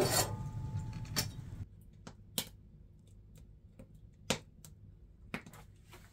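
A few faint, sharp clicks spaced one to two seconds apart in a quiet small room, after a hiss that fades away and cuts off about a second and a half in.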